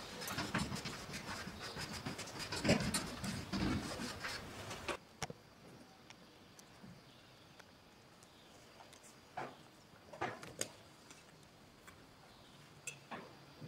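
Chalk scratching and tapping on a blackboard as an equation is written: a dense run of small ticks that cuts off suddenly about five seconds in. After that, quiet room tone with a few scattered light clicks and knocks.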